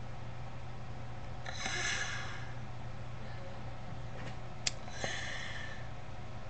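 Two breaths out through the nose close to the microphone, each about a second long, over a steady hiss and low hum. A single sharp click comes between them.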